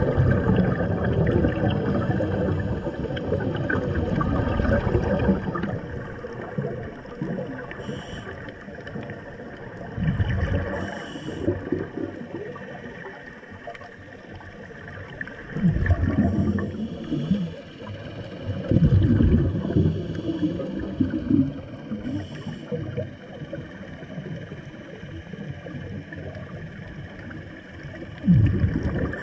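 Underwater, scuba regulator exhalations: bubbles gurgle out in a long, dense spell at first, then in shorter bursts every few seconds.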